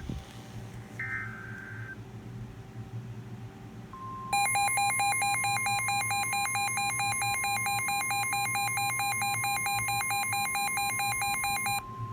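Emergency Alert System broadcast tones. About a second in comes a short burst of the SAME digital header, a buzzing data screech. From about 4 s the steady 1050 Hz weather-radio warning alarm tone sounds, and a rapid electronic beeping alarm of about five beeps a second plays over it until shortly before the end, leaving the steady tone.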